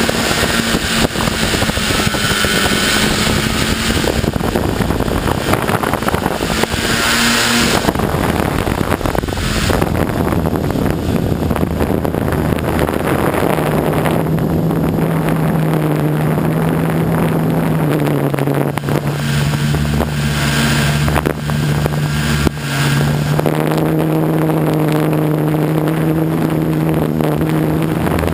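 Small multicopter drone's electric motors and propellers whirring steadily, with wind rushing over its microphone. The motor hum shifts in pitch as it manoeuvres and becomes a stronger, steadier hum from about halfway through.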